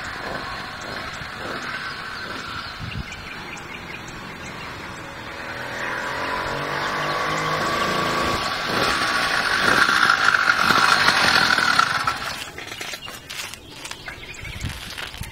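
Two-stroke motorized-bicycle kit engine running on the bike as it rides. It is fainter at first, grows louder with bending pitch from about six seconds in and is loudest around ten seconds. It cuts off suddenly about twelve seconds in, and light clicks and rattles follow as the bike comes in.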